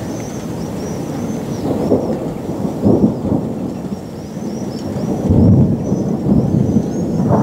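Thunder rumbling in swells over rain, the rumble loudest about five to six seconds in.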